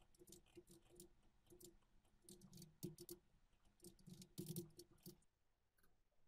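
Faint computer keyboard typing: irregular key clicks that stop about five seconds in.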